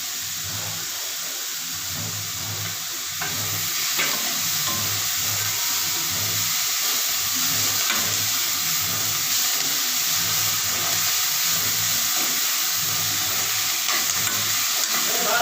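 Onions and chopped leafy greens sizzling in hot oil in a pan while being stirred, with a few light scrapes of the spatula. The sizzle gets louder about three seconds in.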